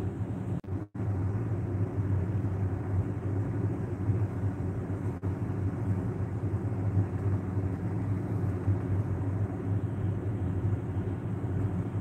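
Steady low rumble of background noise with no clear single source, cutting out for a moment just under a second in and dipping briefly again near the middle.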